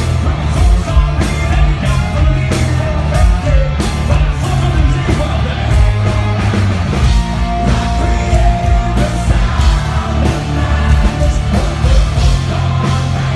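Rock band playing loud and live: electric guitars, bass and a steady drum beat, with a singer's voice.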